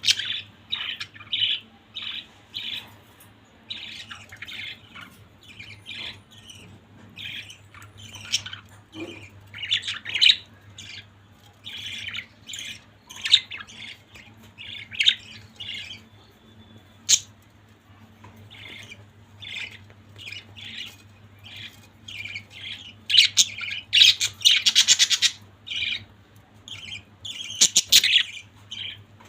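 Budgerigars chattering: a stream of quick chirps and squawks, growing busier and louder about three-quarters of the way through, over a faint steady low hum.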